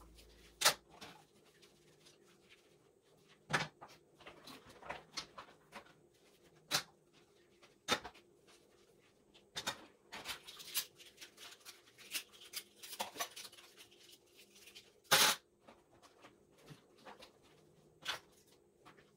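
Dish washing at a kitchen sink: scattered sharp clinks and knocks as washed dishes and utensils are handled and set down, the loudest about fifteen seconds in.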